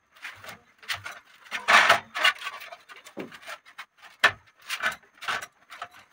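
Hands kneading flour dough in a bowl: irregular slapping and rubbing strokes, a couple each second, loudest about two seconds in.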